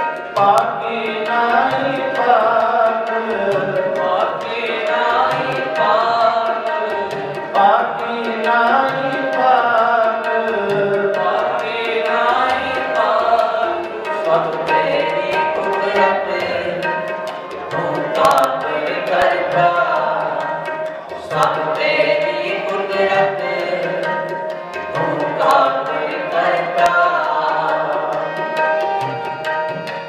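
Sikh kirtan: male voices singing a hymn to two harmoniums, with a tabla pair keeping a steady rhythm. Near the end the singing stops and the harmoniums and tabla carry on.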